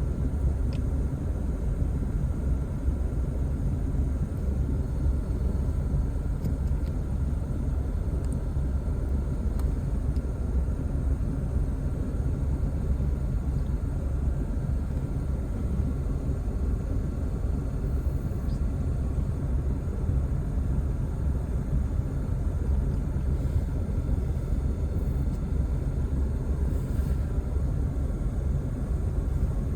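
Steady low rumbling background noise, even throughout, with a few faint ticks.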